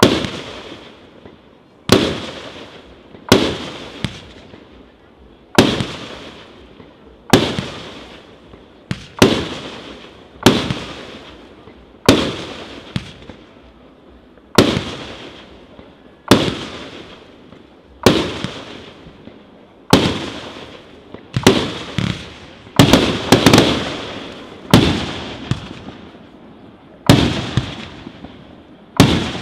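Aerial fireworks bursting one after another, a sharp bang every second or two, each trailing off in a long echo. About two-thirds of the way through, several bangs come in quick succession.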